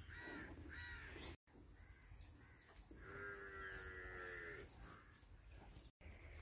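A dairy cow mooing: one long call of about a second and a half near the middle, with a few short, fainter calls in the first second. The sound drops out briefly twice where the clips are cut.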